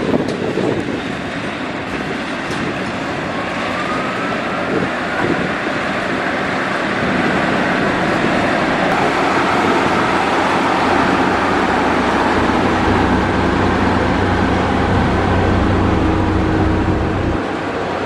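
Mitsubishi MG400 motor grader's diesel engine running steadily under load as the grader drives its blade through gravel and dirt. It grows louder about halfway through as the machine comes closer.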